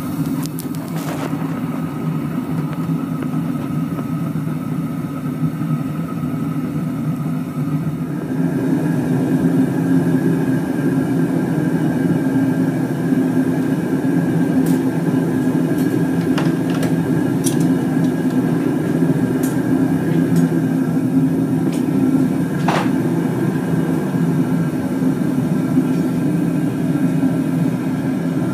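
Gas burner firing into a homemade furnace built from an old gas cylinder, giving a steady low rush of gas and flame that grows louder about eight seconds in. A few faint clicks sound over it.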